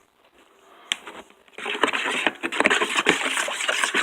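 Water splashing and sloshing in a container, starting about a second and a half in, with many small clicks and splashes.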